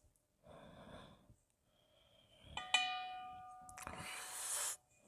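Chopsticks strike the inside of a stainless steel bowl about halfway through, and the bowl rings with a clear metallic tone that lingers for a couple of seconds. A loud breathy hiss from the eater lasts about a second before cutting off, with a softer breath near the start.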